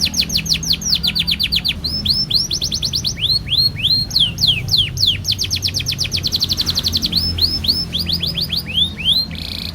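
Domestic canary singing a long unbroken song: fast trilled rolls alternating with runs of quick downward-sweeping whistled notes.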